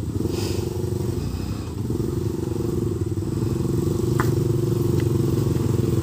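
Street-bike motorcycle engine running steadily, with two short clicks past the middle.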